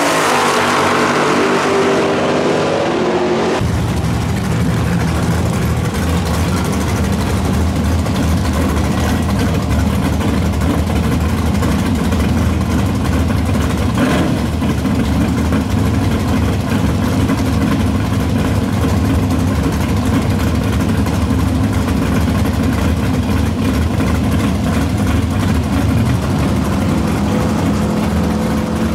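Two drag cars, a first-generation Camaro and a Fox-body Mustang, accelerating hard away down the strip, their engine pitch rising and fading. After a cut at about three and a half seconds, a 1969 Chevelle's engine idles steadily and loudly in the staging lanes for the rest of the time.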